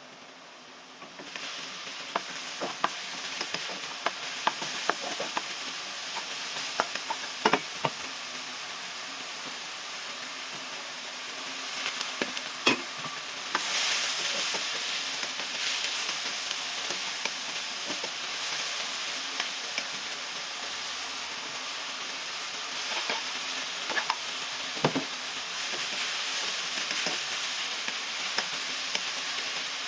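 Food sizzling and frying in a hot pan, stirred with a utensil that clicks and scrapes against the pan now and then. The sizzle starts about a second in and grows a little louder around the middle.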